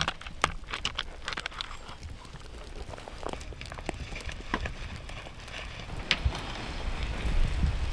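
Irregular sharp crackles and snaps, dense at first and thinning out after a couple of seconds. Near the end, wind buffeting the microphone builds into a low rumble.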